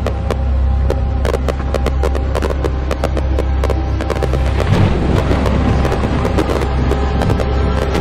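Fireworks going off in quick succession, with many sharp cracks and pops from bursting shells and crackling effects, and a louder burst about five seconds in. Underneath runs a music soundtrack with sustained tones and a deep bass.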